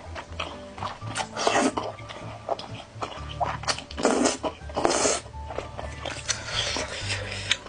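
Close-up eating sounds of a person eating noodles, a handful of short noisy mouth sounds, the loudest about one and a half, four and five seconds in, over background music.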